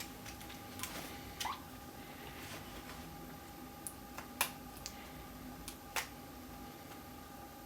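Faint scattered clicks and light taps of a small screwdriver and screws as metal side brackets are screwed onto a laptop LCD panel, the sharpest clicks about four and a half and six seconds in, over a faint steady hum.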